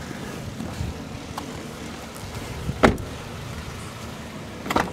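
A car door shutting with a single loud thump about three seconds in, over a steady low rumble, followed near the end by a couple of fainter clicks.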